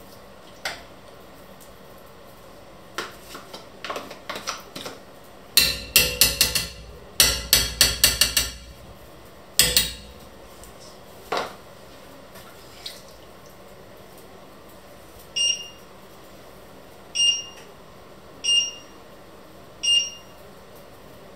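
A spoon scraping and knocking as thick cream is scooped from a plastic tub and tapped off into an enamelled cast-iron pot, with scattered clicks and a burst of quick knocks between about six and ten seconds in. In the last third come four short electronic beeps, about a second and a half apart.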